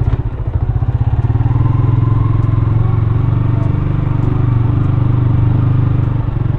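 Small motorcycle engine running while being ridden slowly. Its pulsing note rises a little about a second in, holds steady, and eases off near the end.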